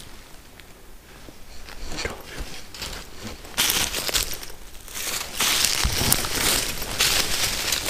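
Footsteps crunching and rustling through dry fallen leaves and twigs: light crackles at first, then loud, dense crunching from about three and a half seconds in.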